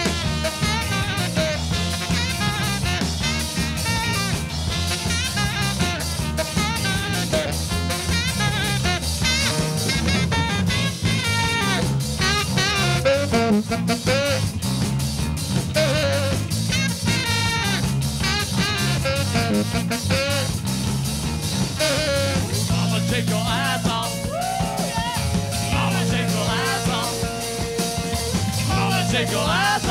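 Live funk-rock band playing an instrumental stretch: an electric guitar solo with bending notes over a steady drum beat and bass.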